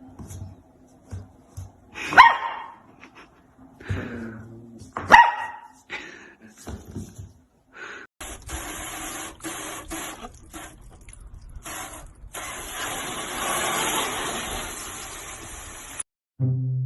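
A dog barks twice, short and sharp, about two and five seconds in, with a few smaller yips and noises between. In the second half a steady hissing noise, broken by short gaps, runs for about eight seconds and then cuts off.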